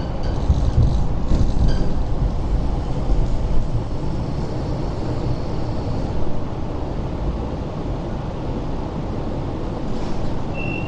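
Hong Kong Light Rail Phase 5 vehicle heard from inside the cabin, a low rumble as it slows into a stop. The rumble eases after about four seconds into a steadier hum, with a faint high whine in between.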